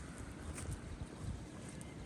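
Steady rain hiss with irregular low thumps underneath.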